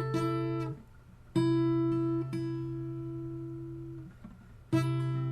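Guitar fingerpicked slowly: a bass string and a treble string plucked together, then single treble notes, each group left to ring out before a short pause. It is a chord with its bass on the fifth string at the third fret and three strings barred at the fifth.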